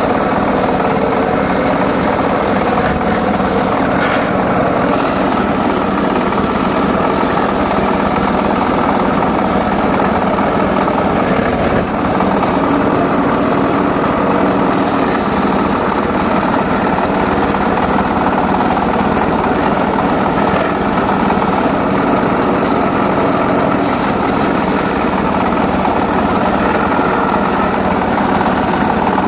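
Homemade circular saw rig running steadily, a continuous machine hum. It has stretches of added high hiss, twice for several seconds, as the blade cuts through sengon laut timber.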